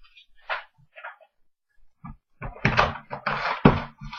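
Sealed trading-card box and its packaging being opened and handled: a few faint rustles, then from about halfway a quick run of loud knocks and rustles.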